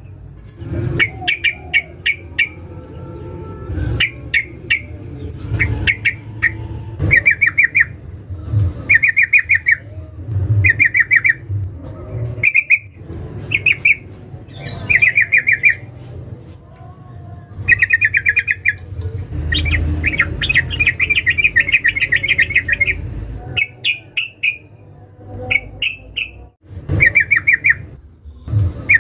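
Female sooty-headed bulbul calling: short bursts of rapid chattering notes repeated every second or so, with one longer run of chatter about twenty seconds in. A low rumble sits underneath.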